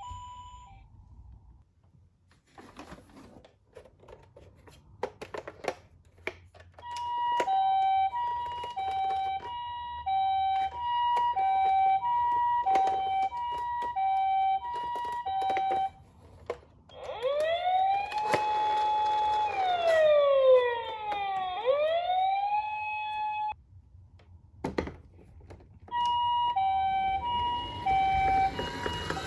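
Toy ambulance's electronic siren. After a few light clicks it sounds the two-tone hi-lo "pee-po" of a Japanese ambulance, switching steadily between a higher and a lower note. Midway it changes to a wail that rises, holds and falls, then quicker up-and-down sweeps, and after a short pause the two-tone comes back near the end.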